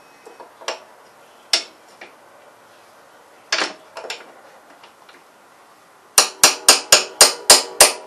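A hammer striking a metal extension rod set against the carburetor of a Honda Harmony 215 mower engine, to drive loose a carburetor that is stuck fast after years outdoors. There are a few scattered knocks at first, then near the end a quick run of about seven ringing blows, about four a second.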